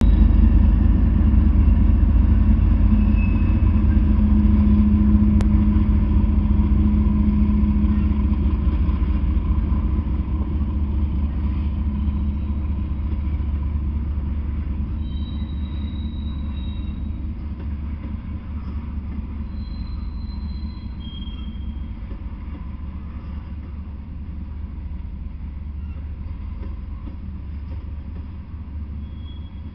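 Norfolk Southern freight train passing: a loud, low rumble that is strongest as the diesel locomotive goes by, then steadily fades as covered hopper cars roll past on the rails.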